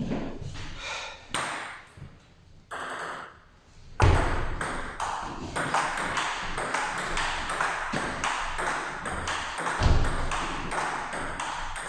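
Table tennis rally: the plastic ball pinging off rackets and the table in quick clicks, sparse at first, then busier and louder from about four seconds in.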